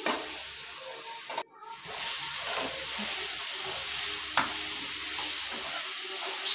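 Cauliflower and potato pieces sizzling in hot oil in a metal kadhai while a metal spoon stirs and scrapes them, with a sharp clink of spoon on pan about four seconds in. The sound drops out briefly about a second and a half in.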